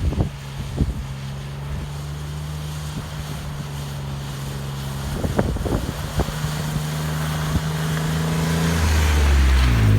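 Vehicle driving on a dirt trail: a steady engine hum under wind and tyre noise that grows louder, with a few knocks from bumps. The engine note falls near the end.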